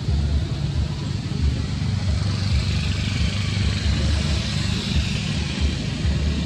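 Wind buffeting the microphone in uneven gusts of low rumble, over a steady high hiss of outdoor background noise.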